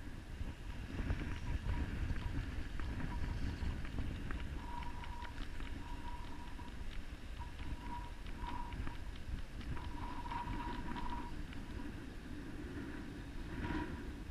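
Wind rumbling on the microphone over moving river water, with scattered light clicks and a faint on-off tone.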